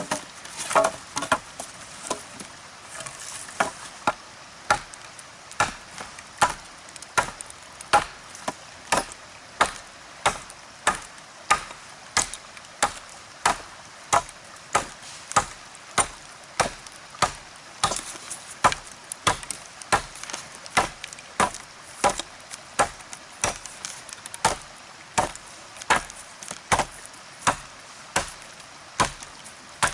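Gränsfors axe chopping wood: a steady run of sharp, woody strikes, a little under two a second.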